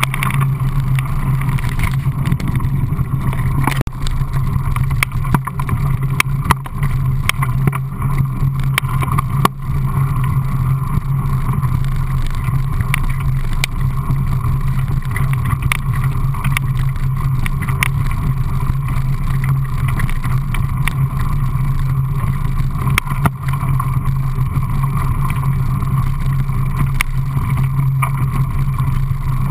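Mountain bike rolling over a gravel trail: a steady low rumble of tyres and vibration, with scattered clicks and knocks as it goes over bumps.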